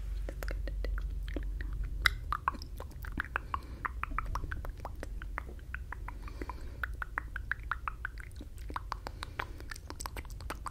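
Close-miked mouth sounds from silently mouthed words: an irregular run of lip and tongue clicks, several a second, over a steady low hum.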